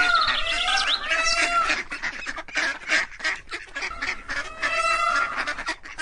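Domestic waterfowl calling: a run of nasal honks through the first two seconds and again about five seconds in, with quick harsh calls between.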